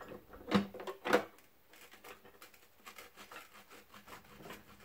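Steel pry bar knocking twice against the cast Model T transmission cover (hogshead), about half a second and a second in, as it is levered to break the cover free. Faint scraping and small clinks follow.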